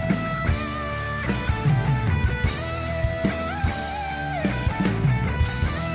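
Instrumental rock music: a lead guitar holds notes and bends one up and back down over a drum kit and bass, with cymbals washing in and out and no vocals.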